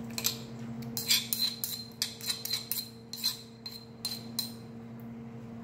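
A metal spoon scraping and tapping inside a granite mortar, emptying pounded papaya salad into a bowl: a quick run of scrapes and clinks that stops about four and a half seconds in.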